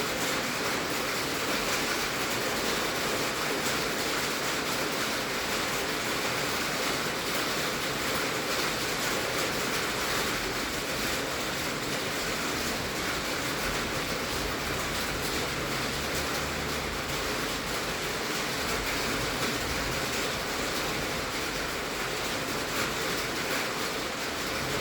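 Heavy rain drumming steadily on a tin roof, a dense even hiss of drops on sheet metal.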